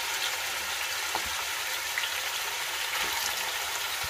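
Raw chicken pieces sizzling in hot oil in a pot, a steady frying hiss with a few scattered pops, just after being added to the oil.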